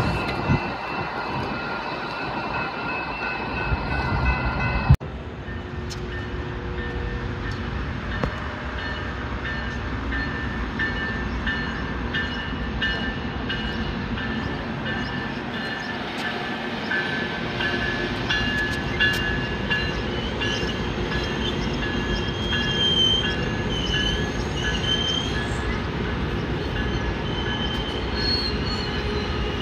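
Coaster commuter train moving through the station, a steady rolling rumble with its wheels squealing against the rails in high, wavering tones. The sound breaks off abruptly about five seconds in and picks up again.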